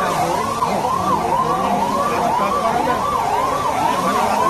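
Emergency vehicle siren sweeping up and down about twice a second, over steady low noise.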